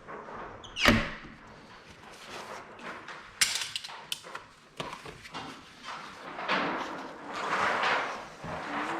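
Large sheet of window tint film being handled and rolled up: rustling and crackling. There is a sharp knock about a second in and a few clicks a few seconds later.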